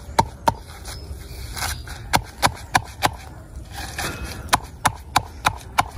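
Pestle pounding guava leaves in a wooden mortar, bruising them rather than grinding them fine: a run of knocks about three a second, with a short pause about a second in.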